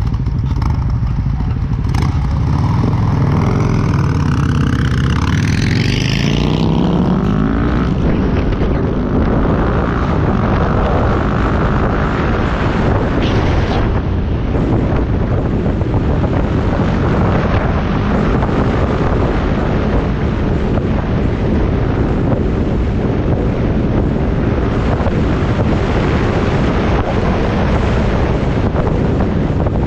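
Motorcycle engine pulling away from a stop, its pitch rising for several seconds, then steady riding with wind rushing over the microphone and the engine underneath.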